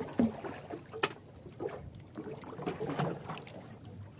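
Water splashing and dripping around a small outrigger canoe with its engine off, as a fishing line is hauled in hand over hand, with a few sharp knocks against the hull.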